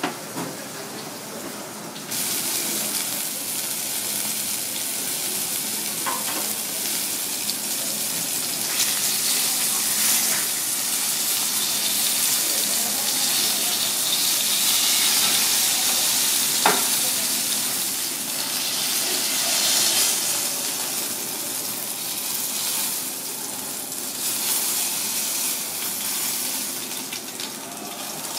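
Pieces of red cornetfish fillet sizzling as they pan-fry in oil in a black skillet. The sizzle starts sharply about two seconds in and swells and eases, with a couple of sharp clicks of the chopsticks against the pan.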